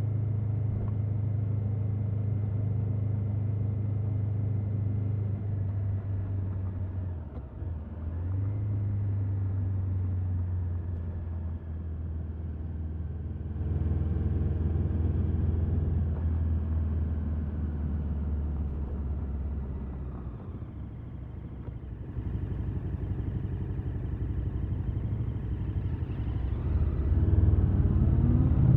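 The stock exhaust of a 2021 KTM 1290 Super Adventure S's V-twin engine running steadily. It drops away briefly about seven seconds in and gets louder at around fourteen seconds. It eases off a little past twenty seconds, then the revs climb near the end.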